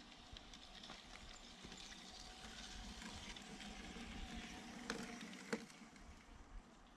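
LGB G-scale model train, a Rhaetian Railway electric locomotive pulling wagons, running past on curved track. Its motor hums, and the wheels rattle and tick over the track, growing louder as it passes. Two sharper clicks come about five seconds in.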